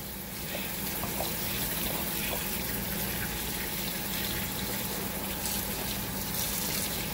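Water from a kitchen tap running steadily into a sink piled with taro leaves, splashing off the leaves as a hand rubs them clean under the stream.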